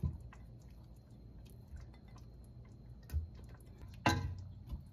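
Cookware being handled: a light knock at the start, a couple of soft thuds about three seconds in, and a short metallic clatter about four seconds in, over a faint steady low hum.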